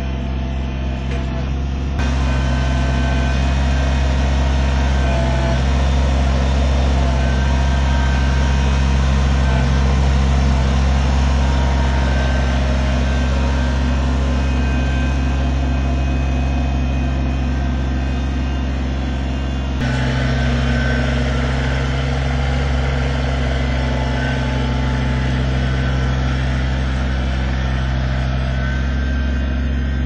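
Kubota compact tractor's diesel engine running steadily at work, with two sudden small shifts in tone about two and twenty seconds in.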